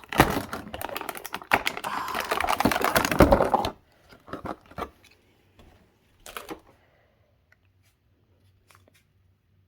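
Small toy packaging being torn and crinkled open by hand: dense rapid crackling and clicking for about three and a half seconds, then a few scattered clicks and taps.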